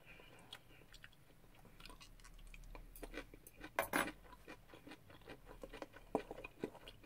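Close mouth sounds of a person chewing food, with scattered small clicks and crackles that are loudest about four seconds in. Near the end, a few sharper knocks as a wooden spoon works in a stainless steel bowl.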